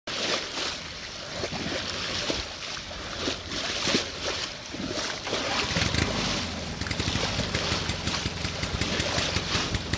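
Water rushing and splashing along the hull of a moving sailboat as the bow cuts through waves. A low, fast-pulsing rumble joins about halfway through.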